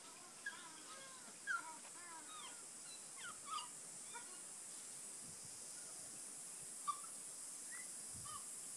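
Ring-tailed lemurs giving many short calls that rise and fall in pitch, thickest in the first few seconds and again near the end, over a steady high hiss.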